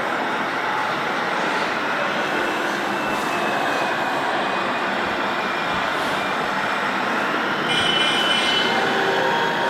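Radio-controlled model trucks running: a steady whirring noise with a thin whine that slowly rises. Near the end comes a brief cluster of high steady tones, a little louder.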